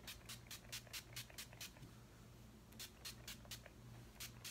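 Makeup setting spray misted from a pump-spray bottle in quick pumps: faint, short hisses about four a second, with a pause of about a second midway before the pumping resumes.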